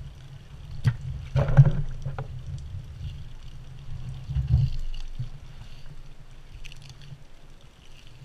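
Handling noise from filleting a halibut on a cleaning table: a knock just under a second in, a short louder rustle and clatter about a second and a half in, and smaller knocks after, over a low steady rumble.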